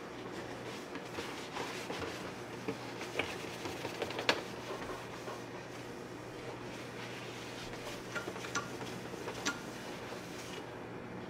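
A cloth wiping over the plastic housing of a Singer Simple sewing machine: a steady rubbing, broken by a few light taps and clicks as the gloved hands move over the case and needle plate.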